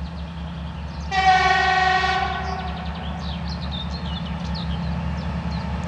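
2TE10U diesel locomotive approaching, its two-stroke 10D100 diesel engines giving a steady low rumble. About a second in, it sounds one horn blast on a single steady tone, lasting about a second and a half. Birds chirp faintly afterwards.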